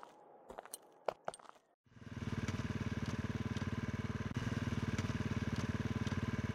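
Footsteps crunching on dry leaves and dirt, then, from about two seconds in, a motorcycle engine running steadily with a fast, even throb as the bike is ridden.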